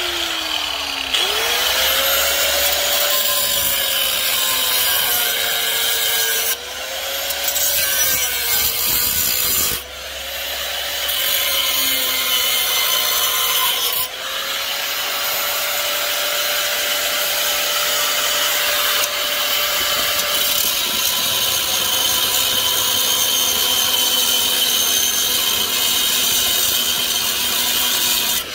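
Hitachi angle grinder with a cut-off wheel cutting through the steel mounting tabs of a chrome motorcycle fender. A steady motor whine over harsh grinding, its pitch sagging and recovering as the disc bites into the metal, with a few abrupt breaks.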